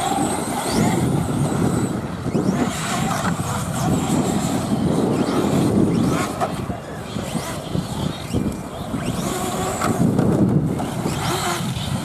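Several remote-control off-road cars racing on dirt, their motors whining up and down in pitch as they speed up and slow down, with tyres scrabbling on the loose surface.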